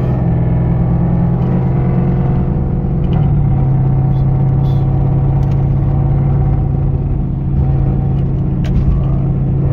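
A Porsche's engine droning steadily with road noise, heard from inside the cabin while driving. The engine note steps up a little about three seconds in, then holds steady.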